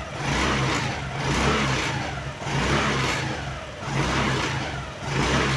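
Honda Activa 110cc scooter's single-cylinder engine revved in short blips, about five times, each rise and fall in pitch. Along with it comes the noise of the loose metal storage-box prop rod under the seat vibrating as the throttle opens.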